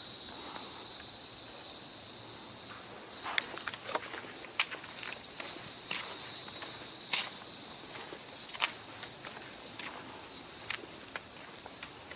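Steady high-pitched chorus of insects singing in the woods, with scattered sharp clicks over it.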